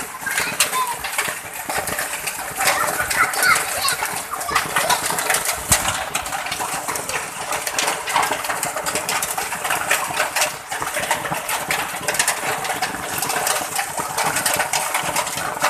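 Hailstorm: hailstones pelting the asphalt road and surrounding surfaces, a dense, irregular clatter of sharp ticks over a steady hiss.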